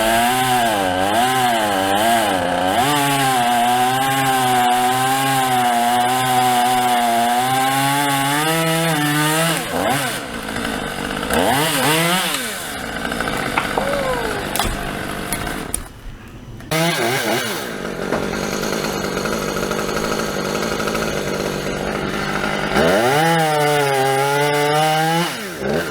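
Chainsaw cutting through a Monterey cypress limb at full throttle, its pitch wavering under load for about ten seconds, then revving down and up. It drops off briefly past the middle, and a second cut starts near the end.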